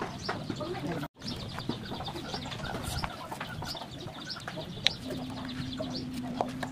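Birds chirping and calling in the background, with light clicks and taps as cut fruit and a knife are handled. The sound drops out for an instant about a second in.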